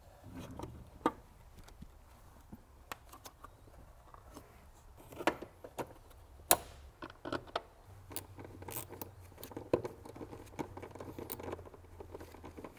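Irregular clicks and knocks of plastic air-intake parts and hose being handled and fitted back into the engine bay, with a few sharper knocks standing out, the loudest about a second in and about six and a half seconds in.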